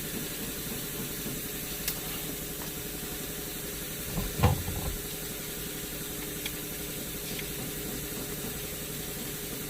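Steady hiss with a few light clicks and one louder knock about four and a half seconds in, from hand work refitting a car's steering column and starting its nuts on the mounting studs.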